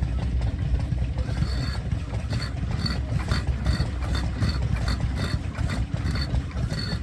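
Ronaldson Tippett Type O stationary engine being turned over by hand and not catching, with a regular clicking of about three clicks a second over a steady low rumble of running engines. The engine is reluctant to start, which the owners put down to a wet magneto.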